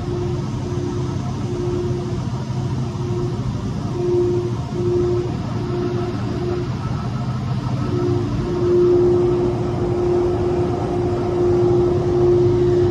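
Paper machine dryer section running: a loud, steady mechanical drone with a low hum. Over it a mid-pitched tone cuts in and out, then holds steady from about two-thirds of the way in.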